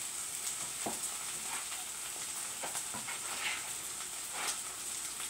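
Corned beef hash frying in a skillet, a steady sizzle, with a few soft scrapes of a wooden spoon stirring it.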